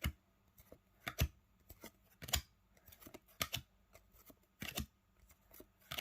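Trading-card pack being handled, a pack of cards or its wrapper: a series of short, sharp snaps and rustles, about one a second.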